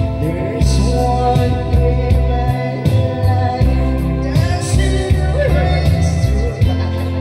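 A man singing into a microphone over a backing track with a deep bass line and a steady beat, played loud through a sound system.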